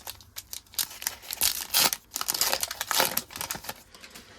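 A foil trading-card pack being torn open and its wrapper crinkled, in a quick run of crackling rustles and short rips, loudest about two to three seconds in.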